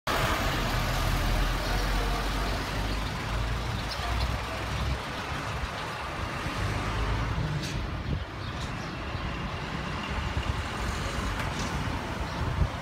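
Light truck engine running as it drives past close by, its low rumble dying away about five seconds in, leaving steady street traffic noise.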